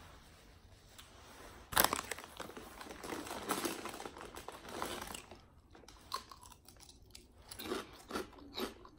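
A bite into a Subway spicy Italian sub held in its paper wrapper, with the paper crinkling; the sharp bite about two seconds in is the loudest sound. Chewing follows, with short mouth clicks in the last few seconds.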